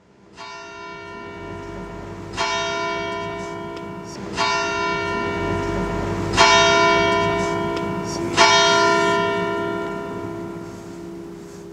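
A church bell tolling five times, one stroke about every two seconds, each stroke ringing on and fading over a steady low hum. The sound dies away after the last stroke.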